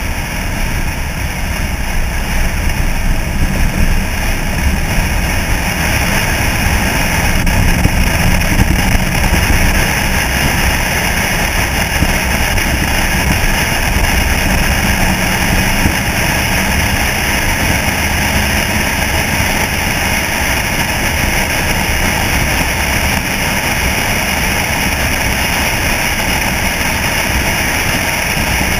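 1964 Chevrolet C-10 pickup driving at a steady cruise, with wind and road noise on a camera mounted outside the cab over the engine's steady low drone.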